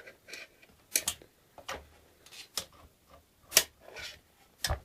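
Parts of an Xbox 360 console being handled during disassembly, around pulling out the disc drive: a string of separate light clicks and knocks, the loudest about three and a half seconds in, and a duller knock near the end.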